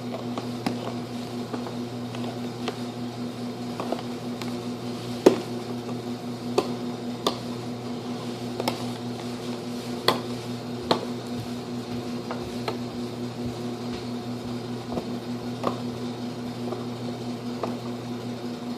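Headphone box packaging being picked and pulled at by hand: scattered sharp clicks and crackles at irregular intervals, the loudest about five and ten seconds in, over a steady low hum.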